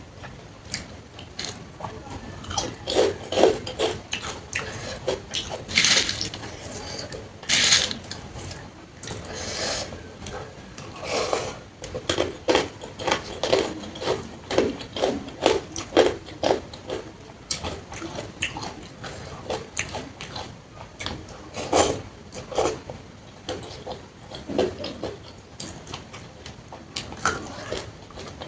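Close-miked eating sounds: chewing and lip-smacking over panta bhat (soaked rice) and fried sides, a dense run of short wet clicks and snaps. A couple of longer hissing sucks come about six and eight seconds in.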